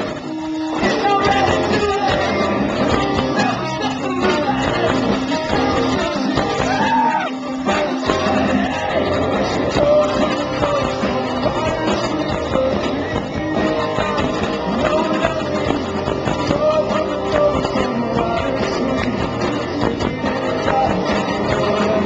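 Live rock band playing: distorted electric guitars, bass and drums, with a male singer's vocals on top.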